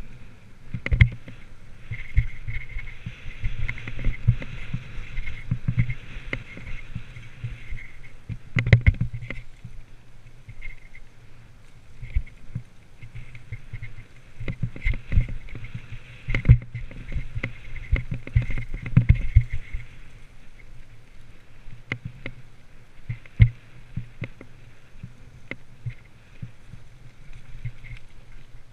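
Mountain bike riding down a leaf-covered dirt forest trail: the bike rattles, with frequent sharp knocks as it hits bumps, over a continuous rushing noise.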